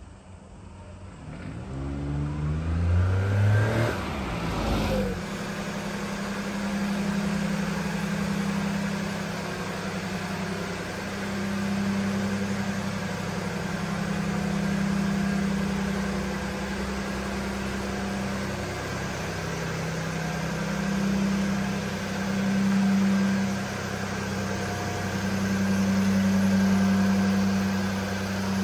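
Daihatsu Hijet kei truck's small engine: its revs rise over the first few seconds, then it runs steadily at idle as a low hum that swells and eases.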